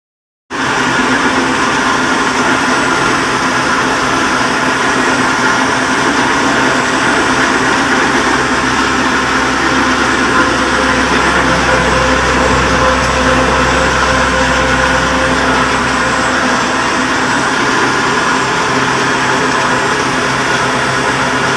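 Flour mill (atta chakki) running steadily, a loud even mechanical hum with a grinding noise over it.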